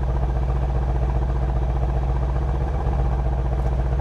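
Mercedes-AMG C63 S twin-turbo V8 idling steadily.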